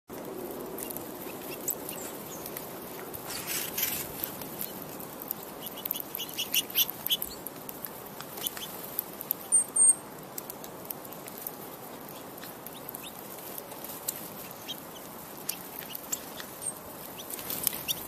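Small songbirds giving scattered short chirps and chip notes over a steady low hiss. The calls come thickest in quick runs between about six and ten seconds in, ending in one sharp high chirp.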